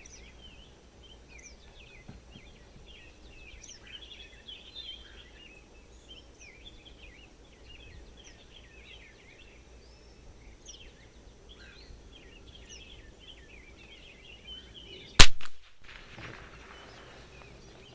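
A single shot from a Kimber 82G .22 rimfire target rifle firing Eley Club ammunition about 15 seconds in: one sharp crack that trails off over about half a second. Before it, birds chirp steadily in the background.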